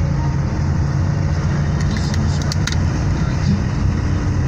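A car driving, heard from inside its cabin: a steady low rumble of engine and road noise, with a few light clicks about two seconds in.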